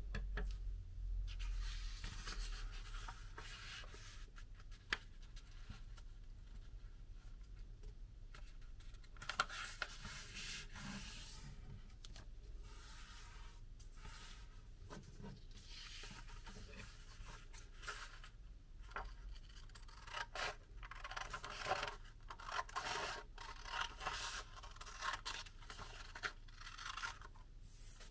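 A sheet of paper being handled, folded and creased by hand, with dry rubbing and rustling in short stretches and a few light clicks, then cut with scissors to trim off the leftover strip.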